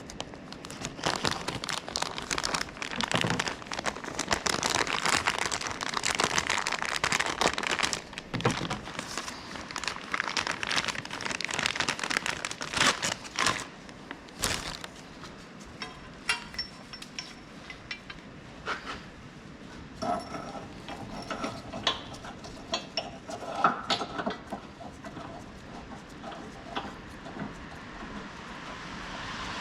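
Tools and metal parts clattering, scraping and clicking during hands-on repair work, busy for about the first fourteen seconds and then thinning to scattered taps, with a few brief metallic rings.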